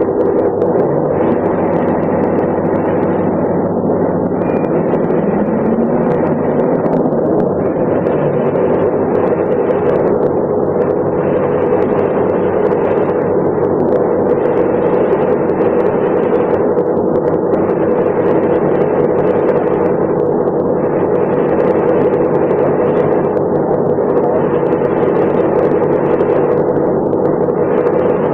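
Diesel engine of a 1988 MAN SL 202 city bus with a ZF manual gearbox, running steadily under way. A tone rises briefly about five seconds in, and a rushing noise above the engine swells and fades every few seconds.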